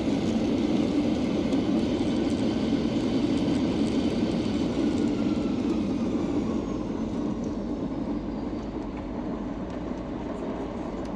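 Airliner engines in reverse thrust during the landing rollout on a wet runway, heard from the cabin. The loud rumble eases off from about six seconds in as the engines spool down with a falling whine.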